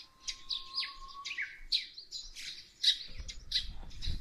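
Small birds chirping: a rapid, continuous series of short, sharp high-pitched chirps and calls from several birds in the bush.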